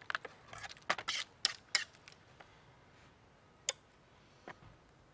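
A metal fork clicking and scraping against a tray, lobster shell pieces and a metal bowl while cooked lobster meat is picked out. A quick run of sharp clicks comes first, then two single clicks later on.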